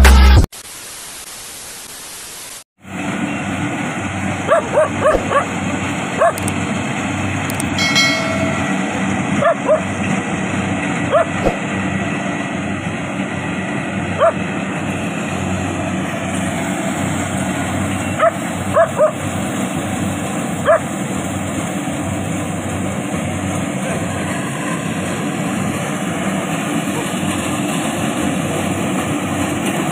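Kubota combine harvester running steadily, with a dog barking a dozen or so times over it, mostly in the first two-thirds.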